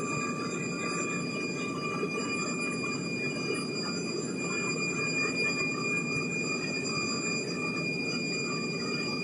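Four Soloviev D-30KP turbofan engines of an Ilyushin Il-76 at takeoff power, heard inside the cabin during the climb just after liftoff. A steady, heavy engine noise with a high jet whine held on a few steady pitches.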